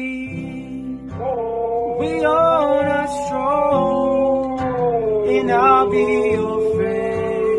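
A husky howling along to acoustic guitar strumming and a man's singing, in a long drawn-out howl that dips in pitch and rises again.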